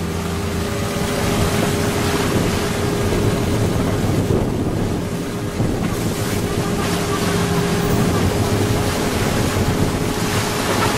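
Fishing boat's engine running steadily with a constant hum, under wind buffeting the microphone and the rush of sea water along the hull.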